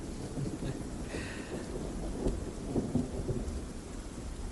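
Steady rain with a low, continuous rumble of thunder: a rainstorm.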